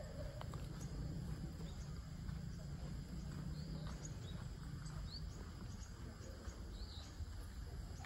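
Pondside outdoor ambience: a steady low rumble, with a few faint, short high chirps scattered through it.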